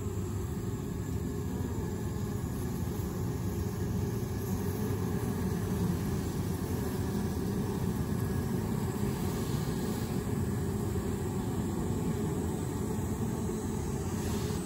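Steady, low hum of a Japanese honeybee colony massed on the combs inside its hive box.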